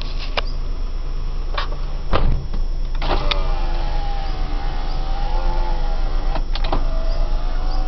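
A few clicks and a knock, then about three seconds in a car's electric power window motor starts whining steadily, its pitch wavering slightly as it runs. The engine hums low underneath.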